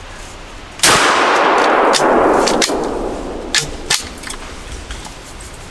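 A single gunshot at a black bear over bait, going off suddenly about a second in and echoing through the forest for about two seconds as it dies away, followed by a few sharp clicks and snaps.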